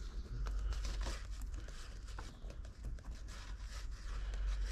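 Rustling and crinkling noise with many light clicks, over a steady low rumble.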